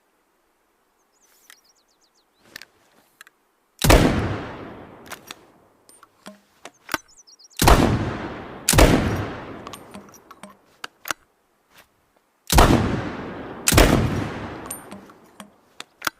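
Makeshift double-barrel shotgun sound effect: five heavy shots, each with a long fading tail. After a single shot come two pairs fired about a second apart, one barrel then the other. Small mechanical clicks of handling and reloading come between the shots.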